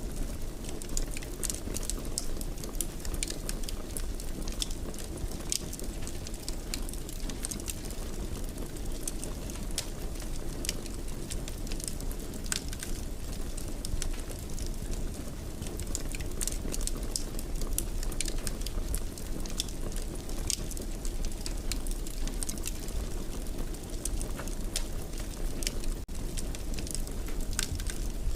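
Wood fire burning in a fireplace: a steady low rumble with frequent, irregular sharp crackles and pops.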